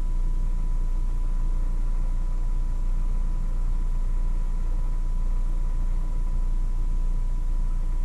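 Steady low hum with hiss and a thin, high, steady whine, unchanging throughout.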